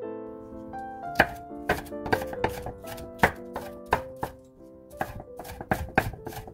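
Chef's knife chopping a red bell pepper on a wooden cutting board: sharp knocks of the blade hitting the board, about three a second, starting about a second in. Background music plays throughout.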